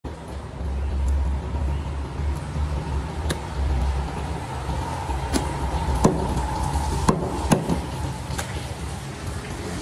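Steady low rumble under a few sharp, separate knocks and clicks of a butcher's knife and cleaver handled against a wooden chopping block.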